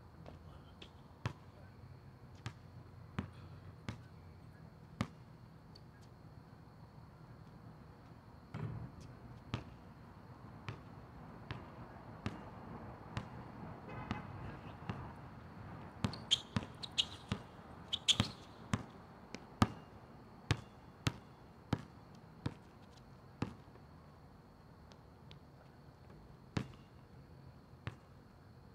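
Basketball bouncing on an outdoor asphalt court: single sharp bounces about once a second, quickening to a run of dribbling at about two bounces a second in the middle, where the loudest hits fall, then thinning out again.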